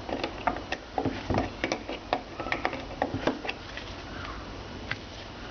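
Irregular metallic clicks and taps, several a second, of a spanner working a rusted nut off a Morris Minor Traveller rear door hinge bolt.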